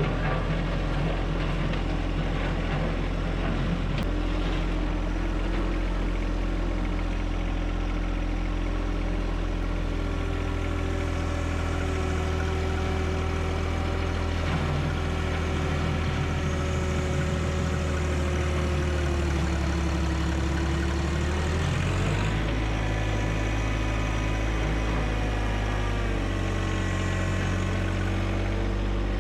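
John Deere 1025R subcompact tractor's diesel engine running steadily, its engine speed shifting a few times, with a rise about 22 seconds in.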